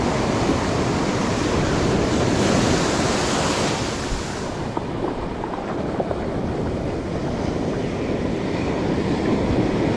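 Ocean surf breaking and washing up the beach close by, with wind buffeting the microphone. The hiss swells for a few seconds near the middle.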